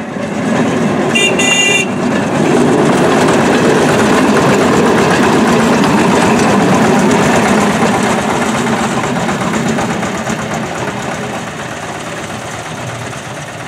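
Engine of a small motorised narrow-gauge rail trolley running as it passes close by, then fading as it moves away into the shed. A short high-pitched tone sounds about a second in.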